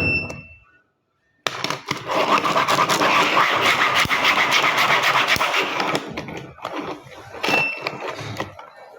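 Toy road roller's spring-driven motor gears whirring and its wheels scraping as it runs, with a fast rattle; the sound starts abruptly a second and a half in and runs about four and a half seconds, then breaks into fainter scrapes.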